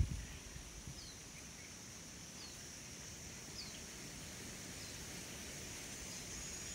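Faint wild ambience: a steady high insect drone, with a bird repeating a short falling call about once a second.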